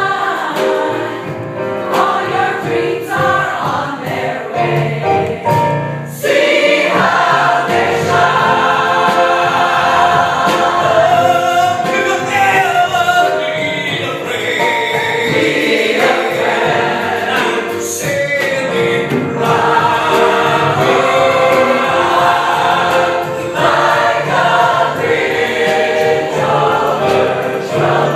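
Choir singing, growing fuller and louder about six seconds in.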